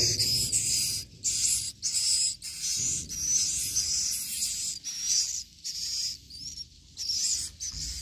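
High-pitched twittering of swiftlets, coming in short wavering bursts again and again.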